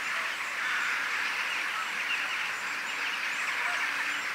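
Many birds calling at once in a steady, dense chatter, with a few higher short chirps over it.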